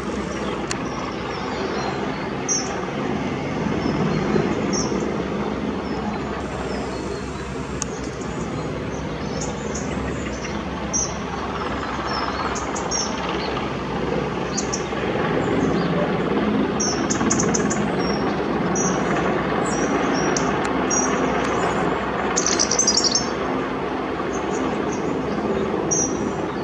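Distant AgustaWestland AW101 Merlin helicopter hovering, heard as a steady rotor-and-turbine drone. Small birds chirp close by throughout, with a quick run of chirps near the end.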